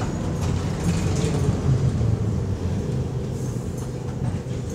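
Cabin of an old ZiU trolleybus on the move: a steady low rumble and hum from the running gear and electric drive, with light rattles from the body.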